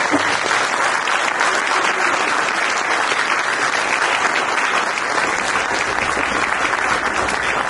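Audience applauding, steady dense clapping from many hands.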